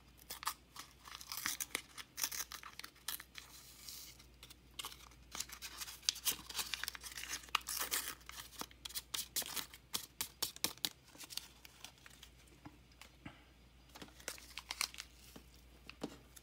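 A small paper sachet crackling and crinkling in the fingers as it is shaken and squeezed to empty its powder, in a dense run of sharp crackles that thins out after about twelve seconds.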